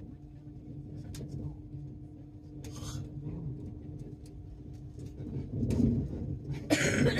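Interior of a Class 800 bi-mode train running on diesel: a steady low rumble with a constant hum. Two short bursts of noise cut in, one about three seconds in and a louder one near the end.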